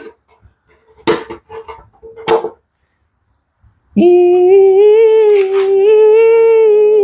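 A few short knocks with a light ring in the first couple of seconds. Then, about four seconds in, a voice begins singing one long high held note, loud and wavering slightly.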